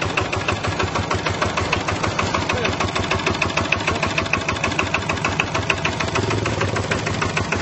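Single-cylinder horizontal diesel engine of a Chinese farm truck idling, with a rapid, even knocking beat. Its large flywheel drives V-belts and pulleys.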